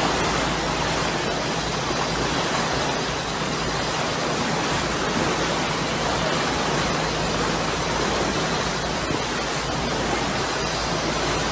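Steady rushing noise of wind and water, even throughout with no distinct events.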